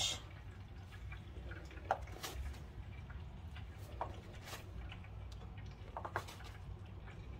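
A few faint, scattered taps of a plastic dough scraper against the countertop as it cuts a log of bread dough into pieces, over a low steady hum.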